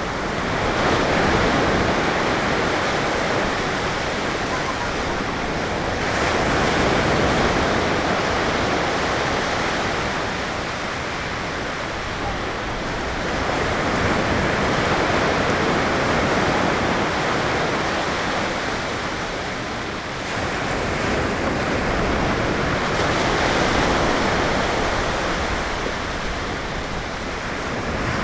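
Ocean surf: waves breaking and washing up on the beach, the rushing sound swelling and fading in slow surges, about four over the stretch.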